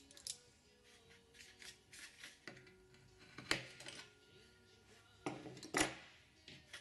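Scattered metal clicks and clatter of steel locking-plier clamps and aluminium sheet parts being handled and set on a workbench: one sharp click about halfway through, then a few more close together near the end.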